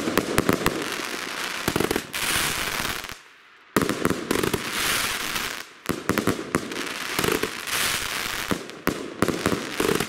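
Nordlicht 'Das Tripple' 36-shot, 25 mm firework battery firing: launch thumps followed by dense clouds of crackling from its crackling stars, coming in waves. There is a short lull a little over three seconds in.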